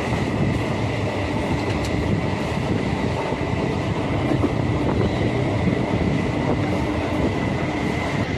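Electric suburban local train running at speed, heard from inside the coach: a steady rumble of wheels on the track with a thin, steady high whine that fades near the end.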